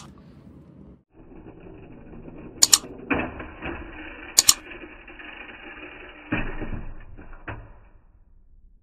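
Plastic toy transforming car's pull-back motor whirring as it runs, with sharp plastic clicks and knocks as the car hits the wall and springs open into a robot. The whir stops near the end.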